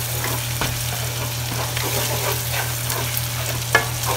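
Chopped onions sizzling in oil in a nonstick frying pan while a wooden spoon stirs and scrapes them. There is a sharper knock of the spoon on the pan near the end.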